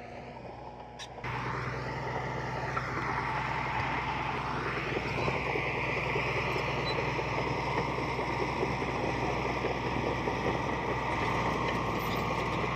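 Diesel engine of heavy earthmoving machinery running steadily, jumping louder about a second in.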